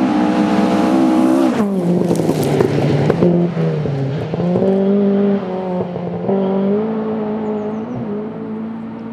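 Rally car passing close on a forest stage: the engine note drops sharply as it brakes and changes down, there is a loud rush of noise as it goes by, then it pulls away, changing up through the gears, and fades.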